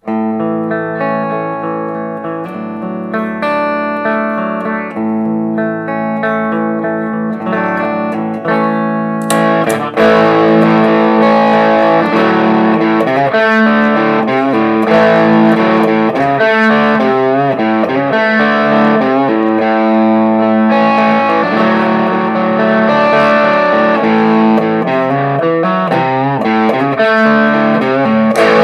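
Electric guitar played through overdrive pedals into a Marshall JCM900 amp, ringing chords and notes with crunchy distortion. About ten seconds in it gets louder and more heavily distorted, into a driving rock rhythm.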